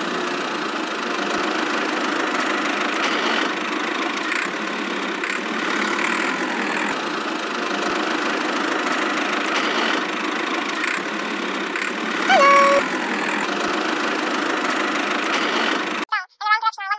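A small motor running steadily, a continuous mechanical hum and hiss, with a brief high tone about twelve seconds in.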